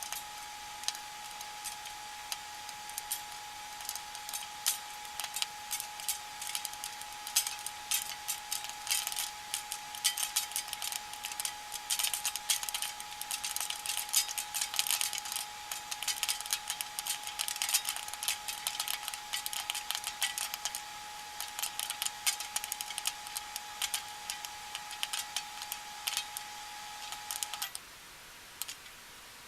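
Popcorn popping inside a running microwave oven over the oven's steady hum: a few scattered pops at first, then rapid, dense popping, thinning out again. The hum and the popping cut off together near the end.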